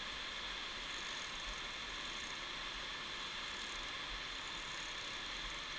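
Steady, even rushing of a white-water mountain stream in the gorge below.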